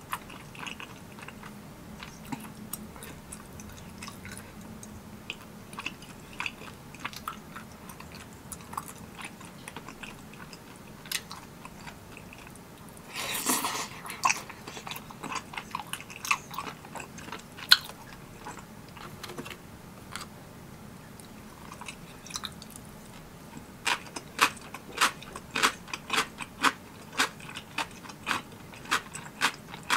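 Close-up chewing and biting of spicy tteokbokki rice cakes, in scattered mouth clicks with a brief louder noise about halfway through. It settles into steady chewing, about two chews a second, for the last several seconds.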